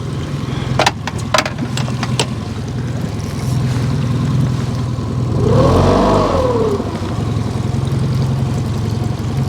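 Boat motor running steadily at idle, briefly revved up and eased back down about halfway through. A few sharp clicks in the first two seconds.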